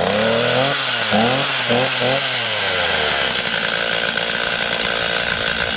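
Stihl MS 290 Farm Boss two-stroke chainsaw running just after a cold start on choke. Its engine speed surges up and down several times over the first three seconds, then settles into a steady run.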